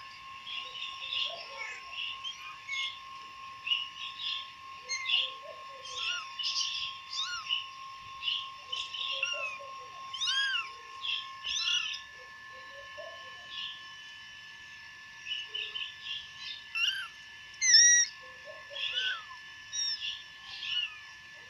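Month-old kittens mewing, short high-pitched cries over and over, the loudest about eighteen seconds in, with shorter high chirps between them. A faint steady whine runs underneath.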